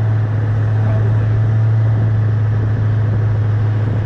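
Lifted Ford F450's Powerstroke V8 diesel running at a steady low drone as the truck crawls up a steep snowy hill without extra throttle, heard from outside beside the wheels.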